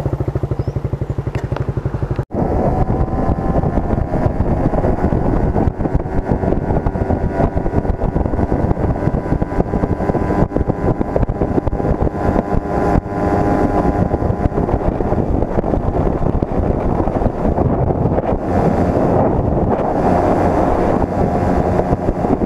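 A motorcycle engine idling with an even beat. After a sudden cut, motorcycles run along the road at speed: engine noise mixed with wind on the helmet-camera microphone.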